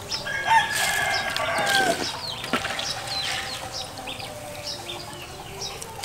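A rooster crowing once near the start, a held call about a second and a half long that drops at its end. A sharp click follows about a second later.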